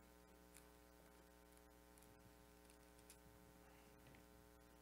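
Near silence: a faint steady electrical hum, with a couple of faint short ticks.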